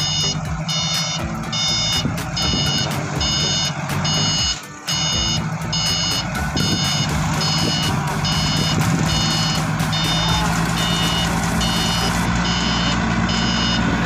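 Forklift backup alarm beeping about twice a second, over the steady drone of the forklift's engine.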